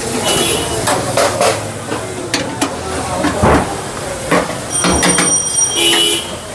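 Irregular metal knocks and clinks from hand tools working on a hybrid battery pack's metal casing and bolts. A high steady horn-like tone sounds for about a second around five seconds in.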